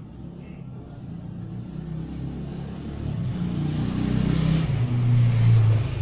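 A motor vehicle passing by, its engine rumble building over several seconds, loudest near the end, then falling away. A scatter of short, very high squeaks sounds over it in the second half.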